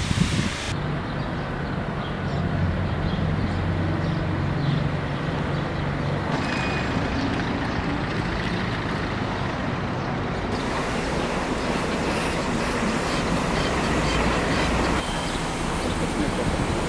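Steady street traffic noise, with a low engine hum from a nearby motor vehicle in the first few seconds.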